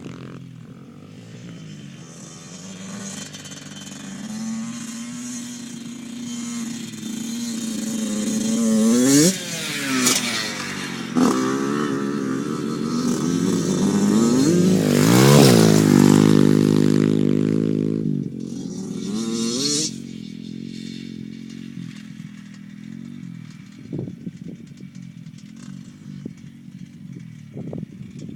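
Small dirt-bike engines revving as the bikes ride by, the engine note sweeping up and down. Two close passes come through, the louder one about halfway through. The sound then drops back to a quieter, more distant drone with a few short knocks near the end.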